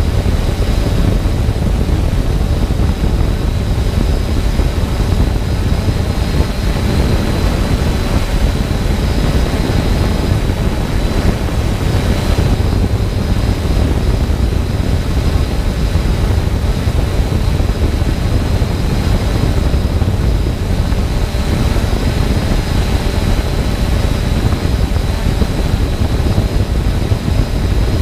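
Multirotor drone hovering, heard through its on-board camera: a steady, heavy rush of propeller wash and wind buffeting on the microphone, with a thin high motor whine above it.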